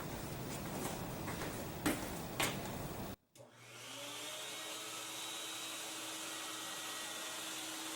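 Shop vacuum running steadily and pushing air into an air-caster platform under a table saw, after a brief break about three seconds in. Before the break there is a steady hum with two short clicks.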